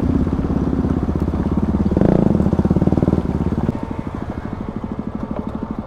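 Motorcycle engine running at low revs. The revs and loudness rise briefly about two seconds in, then drop back and the sound slowly fades.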